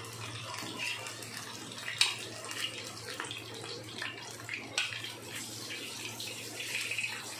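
Chicken seekh kebabs shallow-frying in hot oil in a pan, the oil sizzling steadily, with a couple of sharp clicks as a spatula turns them.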